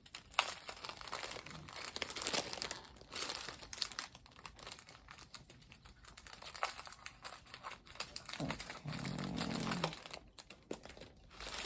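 Small plastic bags of diamond-painting drills crinkling as they are handled and sorted, with irregular crackles and ticks throughout.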